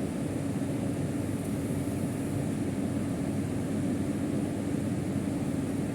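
Steady room background noise: an even mechanical hum with hiss, unchanging throughout.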